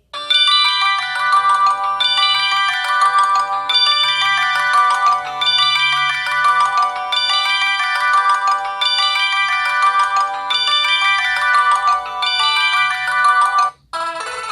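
Samsung Gravity 2 (SGH-T469) phone playing one of its built-in ringtones: a short electronic melody repeated over and over, about every second and a half. It stops abruptly near the end and the next ringtone starts.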